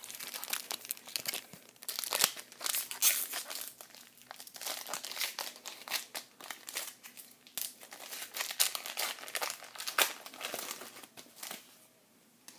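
Crinkling of a baseball card pack's wrapper as it is torn open and handled, in many irregular crackles that die away near the end.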